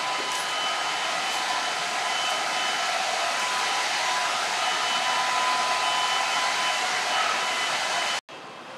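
Steady rushing air of a small motor-driven blower, with a faint steady whine in it; it cuts off abruptly near the end.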